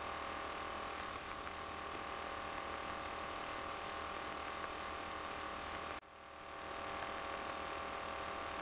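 Steady hum and hiss of the RV-9A's cockpit intercom audio between words, with a few faint steady tones and no engine sound standing out. It drops out briefly about six seconds in and fades back up.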